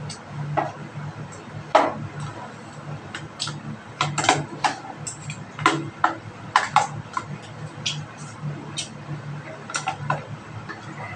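Irregular sharp clicks and taps of a spoon and fork against a plastic food container while eating, over a low steady hum.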